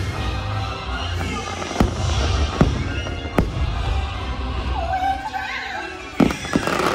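Fireworks bursting over the show's soundtrack music: several sharp bangs, two of them close together near the end.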